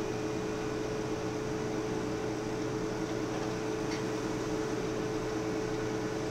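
Steady hum and hiss of running electrical equipment, holding a few constant tones, with a faint click about four seconds in.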